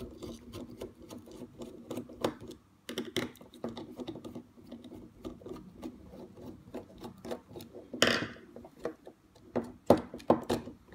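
Phillips screwdriver turning small screws inside a plastic toy-robot housing: many light clicks and ticks of metal on screw and plastic. A short scrape comes about eight seconds in, and a few sharper plastic knocks near the end.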